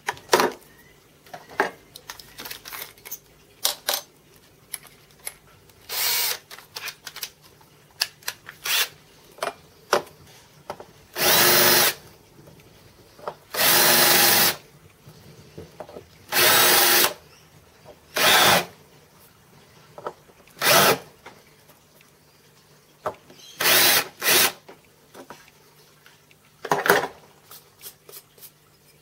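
Cordless drill spinning a bit in short bursts of about a second each, deburring drilled holes in an aluminium plate. Between the bursts come scattered clicks and knocks of the metal parts being handled.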